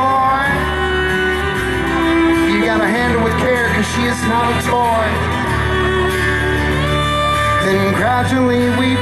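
Live rock band playing, with a male lead singer singing the melody over guitar and sustained low notes.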